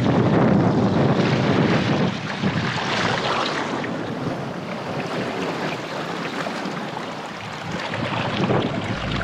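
Small waves washing in over the shallows of a rocky shore in surges, with wind buffeting the microphone.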